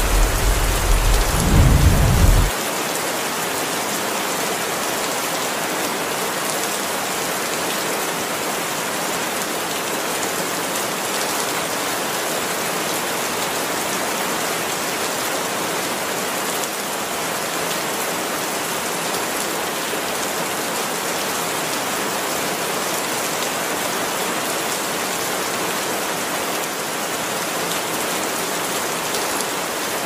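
A deep, loud rumble for the first couple of seconds that cuts off abruptly, then heavy rain falling steadily and splashing on wet ground.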